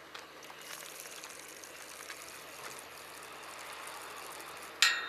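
Fishing reel being cranked in with a steady whirring hiss while a hooked mackerel is played. Near the end comes a sharp metallic clank with a brief ring, the loudest sound.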